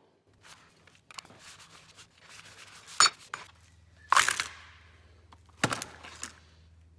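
Plastic quick-grip bar clamps clattering as they are dumped and spread out on a cutting mat, with handling noise between a few sharp knocks, the loudest about four seconds in.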